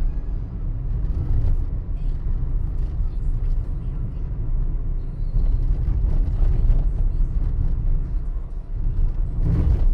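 Car driving along a paved road: a steady low rumble of tyres and engine, with a few light knocks and a brief louder noise near the end.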